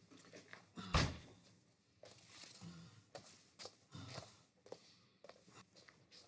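A sharp thump about a second in, then soft footsteps and small scattered knocks.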